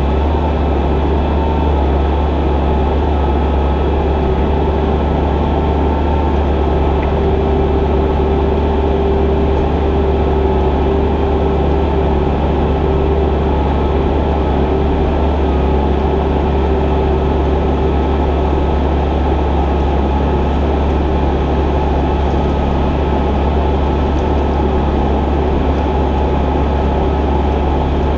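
Diesel engine of a heavy machine such as a skid steer or excavator running steadily at high revs, with a steady whine over the engine drone.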